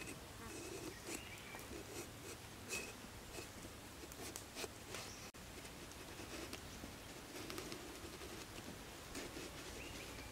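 Large knife shaving the skin off an eggplant and cutting into it on a wooden chopping board: faint scraping with irregular light taps of the blade.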